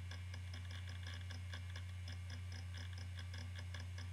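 Iomega Jaz drive running and reading data: a steady low hum from its spinning disk with rapid, regular ticking from its read heads.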